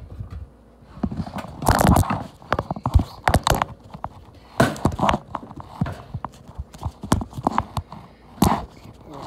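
Irregular knocks and clatter of kitchen items being handled on a wooden cutting board, some in quick runs, the loudest about two seconds in.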